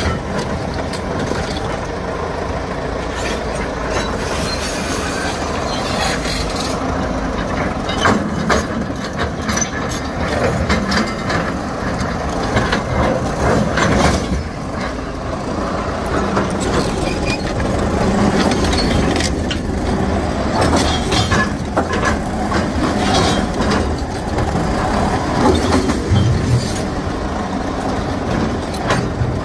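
Crawler bulldozer pushing rock with its blade: a heavy diesel engine running under load, with steel tracks clattering and rock scraping and knocking throughout.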